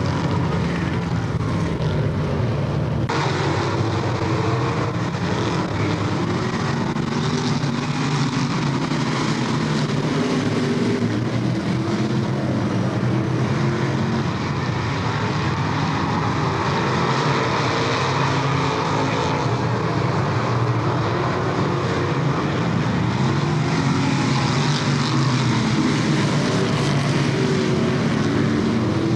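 A pack of dirt modified race cars' V8 engines running hard around a dirt oval, the engine notes wavering up and down as the cars circulate, heard through a camcorder microphone.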